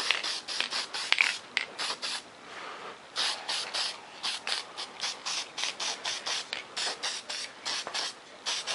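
Aerosol spray paint can being used on a foam model: a run of short hissing strokes, about three or four a second, with one longer unbroken spray about two seconds in.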